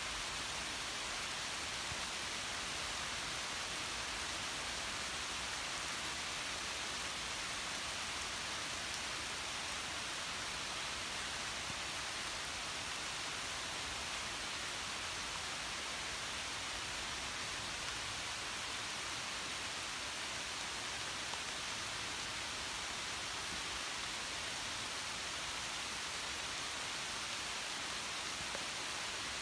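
Steady rain falling on the leaves of a woodland canopy, an even hiss, with one faint tick about eight seconds in.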